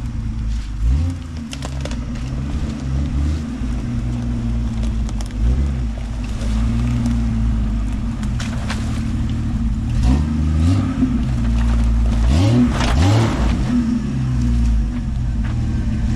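1997 Jeep Wrangler TJ engine running under load as it crawls down into a rocky creek bed, its revs rising several times as the throttle is blipped. Scattered sharp cracks and crunches come from the tyres over rocks and sticks.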